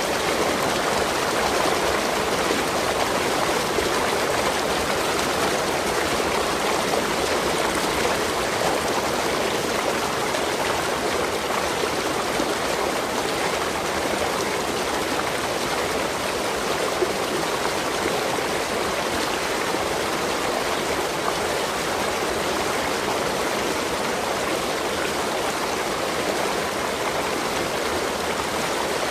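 Waterfall: water pouring and splashing in a steady, even rush.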